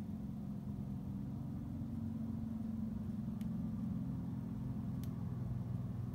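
A steady low hum, with a faint click about halfway through and another near the end.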